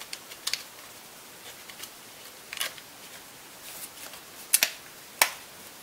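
Scattered sharp clicks and taps of small hard parts being handled during laptop drive disassembly, such as screws and an aluminium drive caddy; the two loudest clicks come near the end, about half a second apart.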